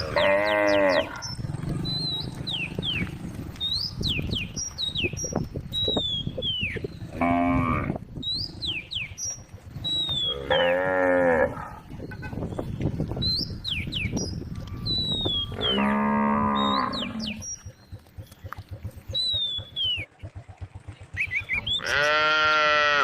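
Cattle mooing: about five long, drawn-out moos from the herd, a few seconds apart, with the last one starting near the end.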